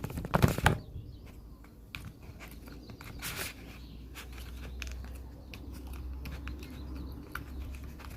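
Slime being poked and pressed with one finger: a couple of louder squishy pops in the first second, then scattered small sticky clicks and crackles.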